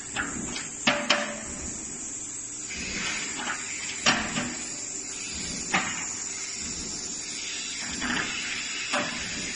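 Frameless glass folding door panels being slid by hand along their track, with a steady hiss and about five sharp clacks as panels meet and knock together.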